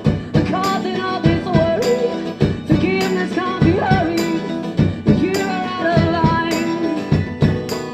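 Live folk-rock music from an acoustic duo: guitars with sharp percussive hits keeping the beat, and voice-like melodic lines.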